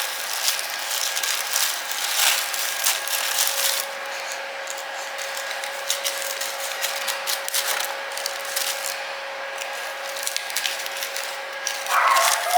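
A spoon scraping the seeds out of halved peppers: irregular scraping and clicking strokes against the pepper flesh.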